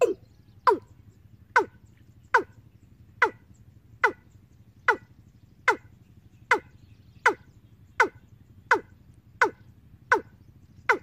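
Recorded bird call played through a horn loudspeaker from a bird-trapping amplifier: a short note falling in pitch, repeated evenly about every 0.8 seconds, over a low electrical hum.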